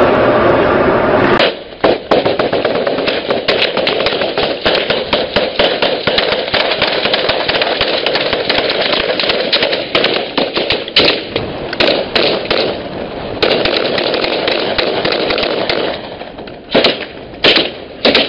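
Gunfire from a ship's deck: a long run of irregular shots, at times several a second, over a steady rushing noise. Near the end the rushing fades and a few louder separate shots stand out.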